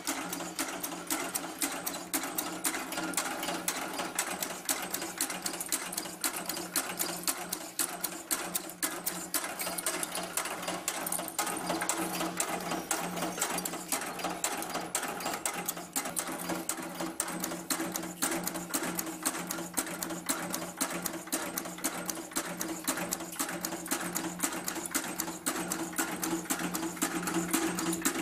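Automatic packing-clip-making machine running steadily, a fast, even clatter of clicks over a steady motor hum.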